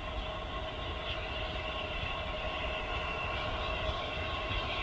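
Steam locomotive hauling a passenger train as it approaches, a steady running noise from the train growing slowly louder.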